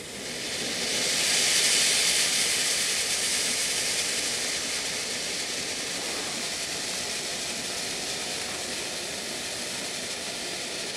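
World Class Fireworks 'Reflection' ground fountain spraying sparks with a steady hiss, swelling over the first two seconds and then settling a little quieter.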